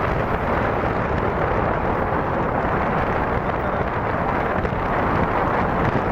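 Strong wind rushing steadily and buffeting the microphone, a continuous low rumble with no breaks or distinct events.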